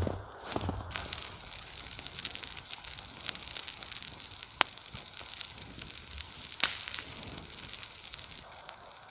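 Open wood campfire crackling, with a steady hiss and many sharp pops; the loudest pops come about four and a half and six and a half seconds in.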